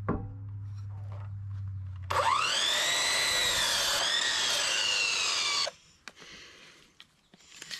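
Electric sliding compound miter saw starting about two seconds in with a quickly rising whine and crosscutting a 2x4. Its pitch dips slightly as the blade bites the wood, and it cuts off sharply about three and a half seconds later.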